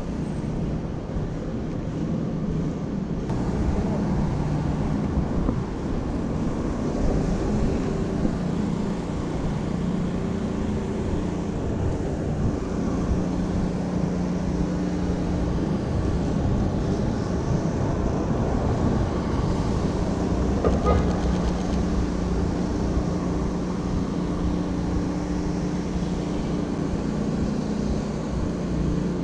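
Steady low rumble of city traffic, with a droning engine hum.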